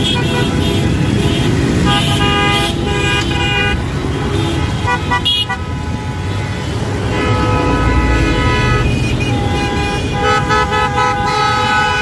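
Dense city street traffic: a steady rumble of engines with horns honking again and again, several of them held as long blasts.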